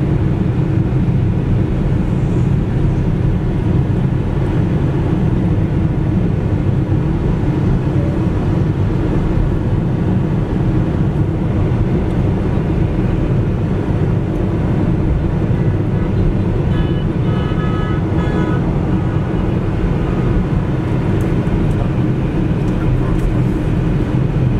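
Car interior road noise: a steady low rumble of engine and tyres while driving along a paved road.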